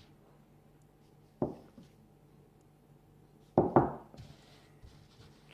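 A few hard knocks as shaving gear is handled against hard surfaces: one about a second and a half in, and two close together near four seconds. Faint rubbing follows.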